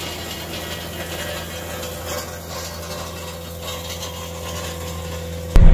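CAT 259D3 compact track loader running steadily with a Harley power rake churning through driveway gravel: a continuous dense rattling and scraping of stones over the machine's low diesel hum.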